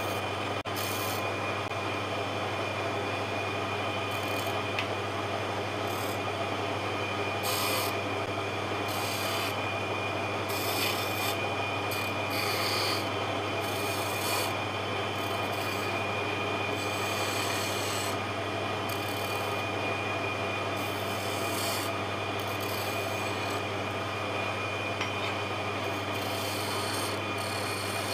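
Wood lathe running with a steady hum while a turning chisel cuts into the spinning wood blank, the scraping cutting noise coming and going as the tool is pressed in and eased off.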